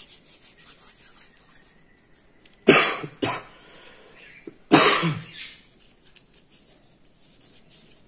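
A person coughs: a double cough about three seconds in, then another cough about two seconds later.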